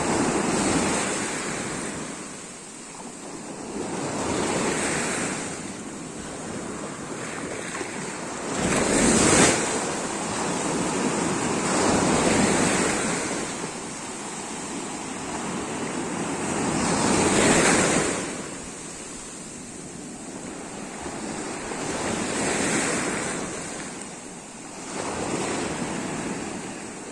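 Sea waves breaking and washing up a beach, the surf swelling and falling back every four or five seconds, with two bigger surges about a third and two-thirds of the way through.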